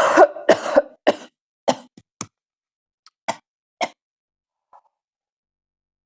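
A person's fit of short, dry coughs, coming fast at first, then fainter and further apart, dying away about four seconds in.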